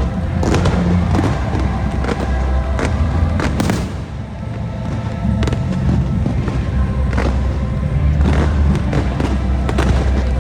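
Fireworks bursting and crackling in a quick scatter of sharp bangs over a loud, bass-heavy fireworks-show music soundtrack.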